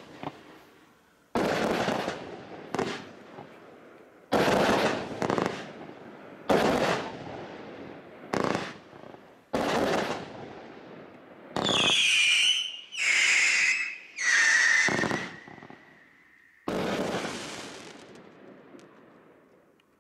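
Goliath 84-shot barrage firework cake firing: a string of sudden bangs, each fading away over a second or so. About halfway through come three high whistles that fall in pitch, then a last bang that dies away near the end.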